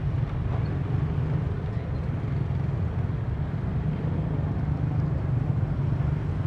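Steady low rumble of outdoor city ambience, with distant traffic.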